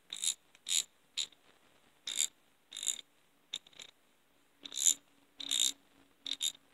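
Freshly cleaned and lubricated Craftsman 1/2-inch drive ratchet worked back and forth by hand: about ten short bursts of pawl clicking at an irregular pace. The audible click, which it did not have before the service, shows the reassembled pawl mechanism is engaging again.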